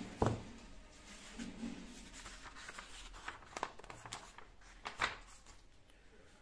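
Paper rustling as textbook pages are handled and turned, with a few sharper swishes of paper; the loudest comes about five seconds in.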